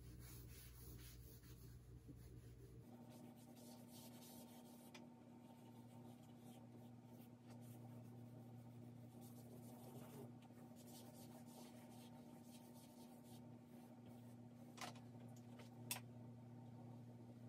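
Faint scratching and rubbing of a drawing stick on paper as strokes of shading are laid on, with two sharp clicks near the end.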